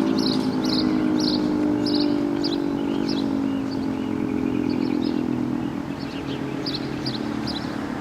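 1976 Federal Signal 2T22B dual-tone siren winding down: its two-note chord slides slowly lower in pitch and fades. Short high chirps repeat over it about twice a second.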